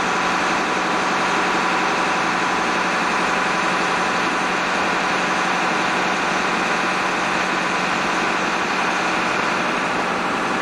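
Marine engine running steadily: a constant, even drone with a steady hum that does not change.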